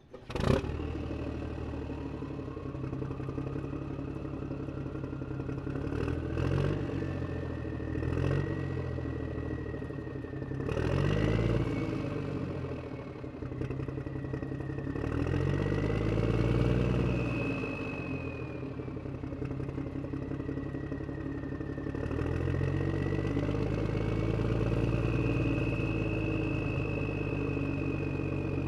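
Small electric gear motors of a wired-remote toy excavator whirring with a plastic gear clatter as the arm and bucket work, the whine slowly rising and falling in pitch.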